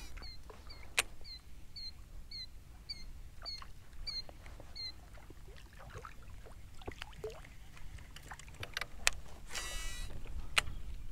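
Baitcasting reel spool whirring briefly during a cast near the end. Before that, faint high chirps repeat about twice a second for the first few seconds, with scattered light clicks.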